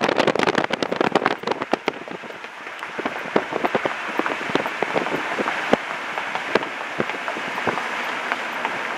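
Car tyres rolling over gravel, a dense crunching crackle of stones that thins to scattered pops after about two seconds.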